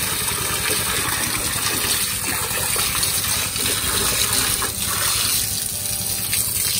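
A stream of bore-well water pouring and splashing steadily into the shallow water of a snail tank; the splashing thins out about five seconds in.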